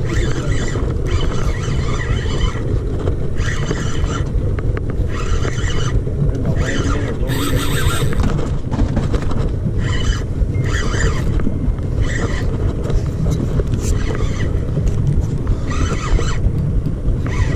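Large spinning reel cranked in spurts of a second or so with short pauses between, as a hooked fish is reeled in against a steady low rumble of boat motor and wind.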